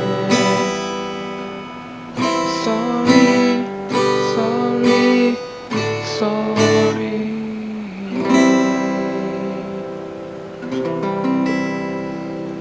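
Acoustic guitar strummed as the song closes: a chord struck every one to two seconds, each left to ring and fade before the next.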